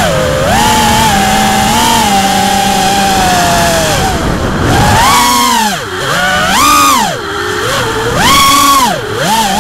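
GE 220 FPV quadcopter's electric motors and propellers whining, heard from its onboard camera, the pitch rising and falling with the throttle. Steady for the first few seconds, then swooping up and down, with sharp drops in pitch about six, seven and a half and nine seconds in as the throttle is chopped.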